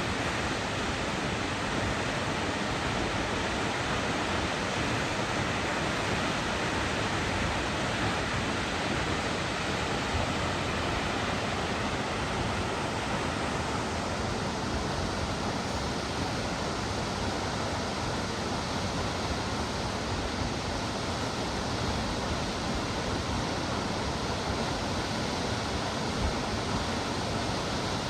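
Steady rushing roar of a large waterfall, Salt Creek Falls, a constant wash of falling water. About halfway through it turns slightly brighter and hissier.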